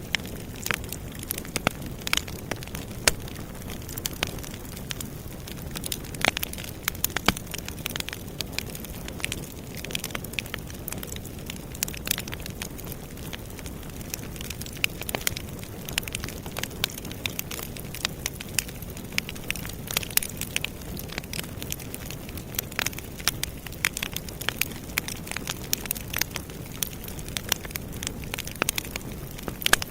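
Campfire burning steadily, with many sharp irregular crackles and pops over a low rumble of flame.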